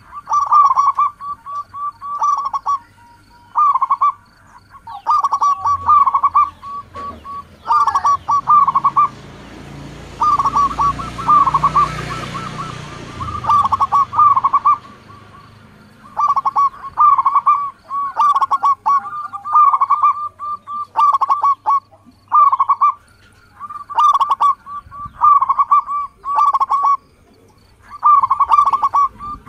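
Zebra dove (perkutut) singing its cooing song: short phrases of rapid stuttering notes, repeated over and over with brief pauses between. A broad rushing noise swells and fades in the middle.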